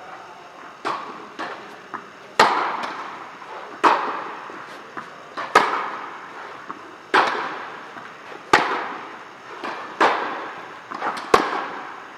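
Tennis rally: a ball struck back and forth by rackets, each hit and bounce echoing around a large metal-walled indoor hall. The loudest hits come about every one and a half seconds, with fainter hits and bounces in between.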